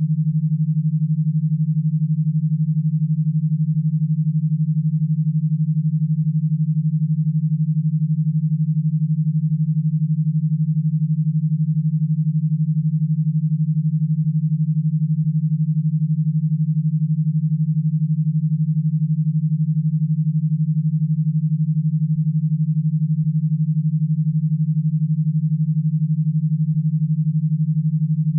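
Synthesized e-stim signal: a single steady low tone, pulsed twelve times a second. It is a waveform meant to drive electrodes through a stim power box, not music.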